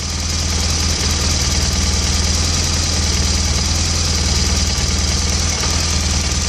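BMW GS motorcycle's flat-twin engine idling steadily.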